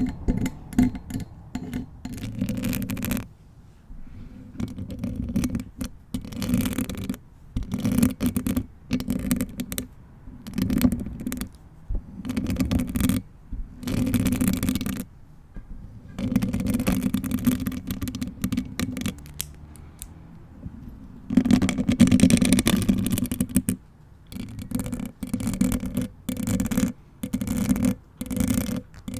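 Hand movements on a bare Blue Yeti microphone: fingers and long nails brushing and scratching over it in irregular strokes of a second or so, with short pauses between.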